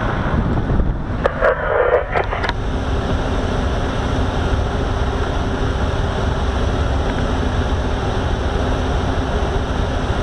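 Fire tanker truck's engine running, heard from inside the cab as a steady rumble. A few knocks and clatter come between about one and two and a half seconds in.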